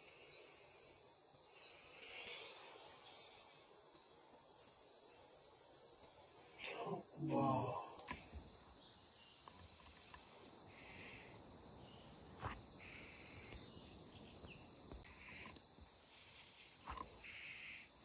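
Insects droning in one steady high-pitched tone, with a brief low voice about seven seconds in.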